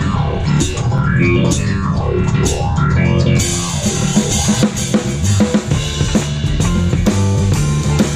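Drum kit played with sticks, heard close up from the kit, in a live band with electric guitar: snare, bass drum and cymbal hits. About three and a half seconds in, the cymbals fill in thick and steady.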